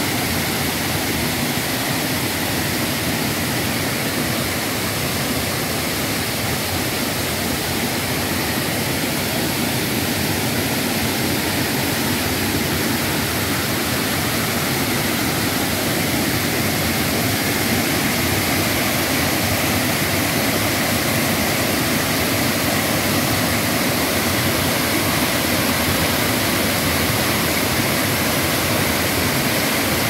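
Small waterfall's white water rushing over rock ledges into a pool: a loud, steady rush that grows a little louder about halfway through.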